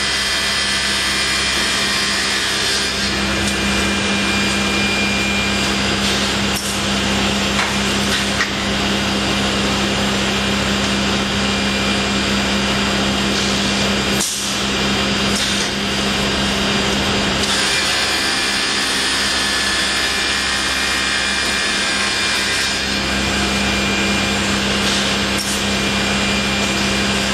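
Multi-blade panel rip saw running and ripping wood panels: a loud, steady mix of hiss and whine over a low hum, the hum easing off for a few seconds around the middle.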